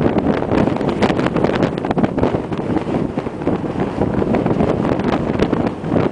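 Wind buffeting the microphone on a sailboat under way: a loud, steady rushing noise broken by many sharp crackles and pops from the gusts hitting the mic.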